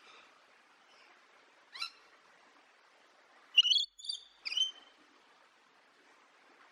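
Parrot calling: one short call about two seconds in, then a quick run of three sharp chirps, the first the loudest, over a faint steady hiss.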